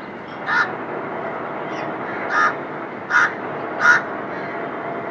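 A crow cawing: four short, harsh caws, the last three coming quickly one after another.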